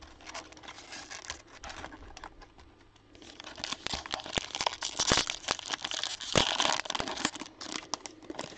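Cellophane wrapper of a trading-card pack crinkling and tearing as it is opened, with dense crackles that grow louder about three seconds in.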